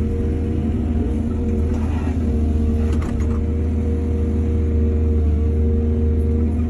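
Excavator's diesel engine running steadily under load with a deep hum and a constant higher tone, and a short burst of clatter about three seconds in.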